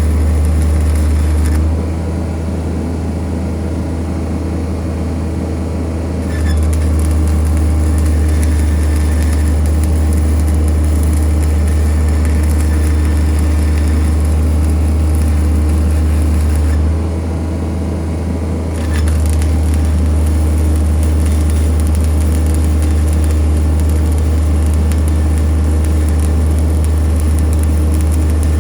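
Kubota D722 three-cylinder diesel engine of a Denyo TLW-300 engine welder running steadily with a deep hum, its loudness dipping twice for a few seconds and then coming back up.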